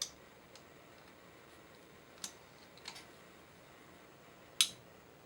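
A handful of separate sharp metallic clicks as hand tools work on engine fasteners, the loudest about four and a half seconds in.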